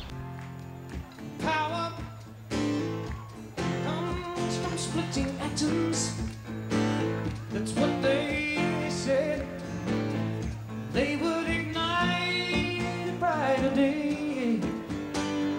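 A song: a singing voice with guitar accompaniment.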